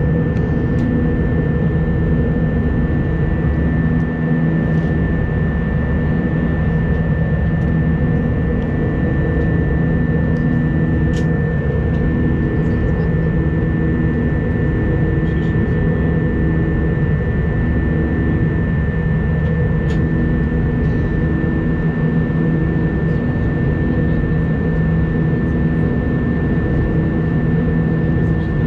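Steady jet engine and airflow noise inside a jetliner's cabin at a window seat in flight. A thin high whine holds level over it, and the low engine drone pulses slowly, with a couple of faint ticks.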